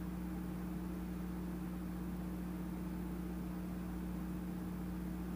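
A steady low hum over an even hiss, unchanging throughout, with no knocks or footsteps.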